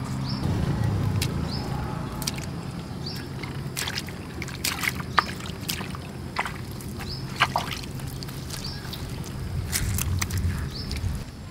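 Bare feet squelching in soft wet mangrove mud, each step a short wet suck and crackle. A low steady hum runs underneath, and a short high chirp recurs every second or so.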